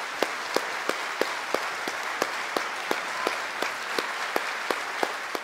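Concert audience applauding, with loud claps falling in an even beat of about three a second over the general clapping.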